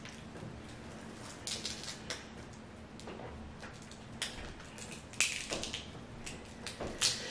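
Crab leg shells being cracked and peeled apart by hand: scattered sharp cracks and small crackles, the loudest about five seconds in and near the end.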